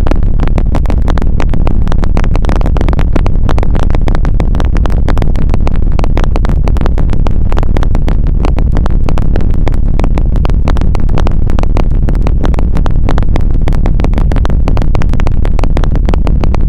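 Emergency alert system (EAS) alarm: a loud, harsh, distorted electronic noise with a rapid buzzing pulse and a heavy low end.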